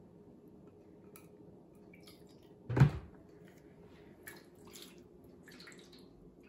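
White vinegar poured from a plastic jug into a measuring cup, then a loud thud nearly three seconds in as the jug is set down on the counter. From about four seconds in, the liquid splashes and trickles as the cup is poured into a shallow baking sheet of water.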